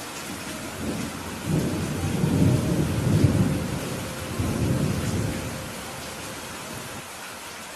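Steady rain falling on a roof, with a roll of thunder that swells about a second and a half in, rumbles low for a few seconds and fades away.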